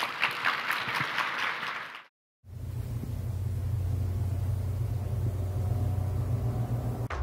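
Audience applause for about two seconds, cut off abruptly. After a brief gap, a steady low rumbling drone starts under an animated logo outro.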